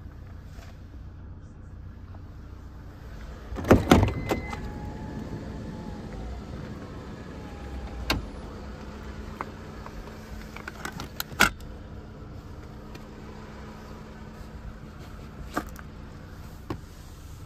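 Clunks and clicks from a Toyota Vellfire minivan's sliding side door and seats being handled, over a steady low hum. The loudest clatter comes about four seconds in and is followed by a brief electric motor whine. Sharper single clicks come later.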